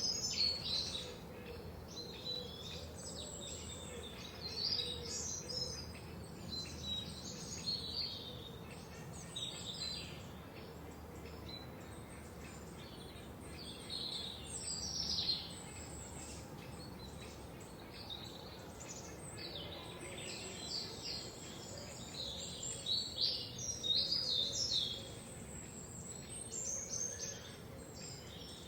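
Several songbirds chirping and singing in a forest, their high phrases coming in clusters over a faint steady background hiss.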